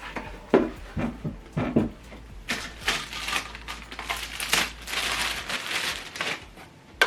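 Plastic packaging crinkling and rustling, with a few light knocks in the first two seconds, as boxed speaker components are handled and unwrapped.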